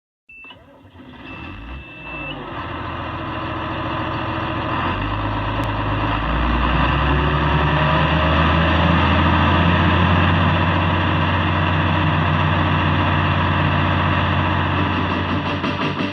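Farm tractor engine running, growing louder and rising in pitch over the first six seconds or so as it is throttled up, then running steadily. A steady high beep sounds for about two seconds at the start.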